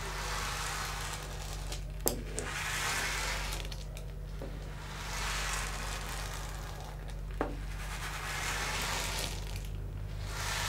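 Hand-made sea-wave sound effect: a hissing swish that swells and fades in slow waves about every two seconds, with two sharp clicks along the way. A steady low hum runs beneath it.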